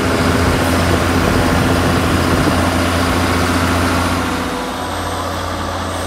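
John Deere 6830 tractor's six-cylinder diesel engine running steadily while pulling a plough, a constant low drone; it gets a little quieter about four and a half seconds in.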